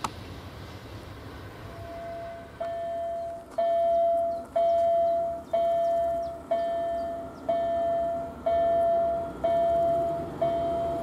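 Railway level-crossing warning bell ringing about once a second from about two seconds in, each ring a clear tone that starts sharply and fades. It signals an approaching train.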